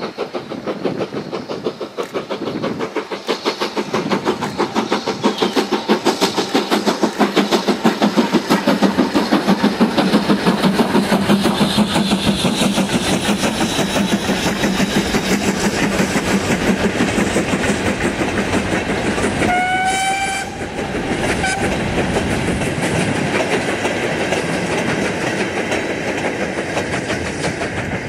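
Steam locomotive working a train past with rapid, rhythmic exhaust beats that grow louder to a peak and then ease off. About twenty seconds in comes one short whistle blast, lasting about a second and rising slightly in pitch.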